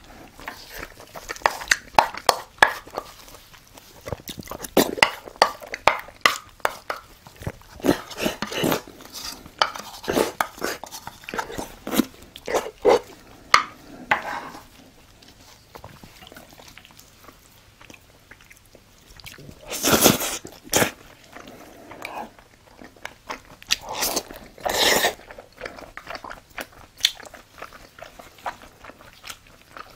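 Close-miked chewing of a mouthful of food, with many crisp crunches in the first half and softer chewing after. Twice in the second half there is a louder rush of noise.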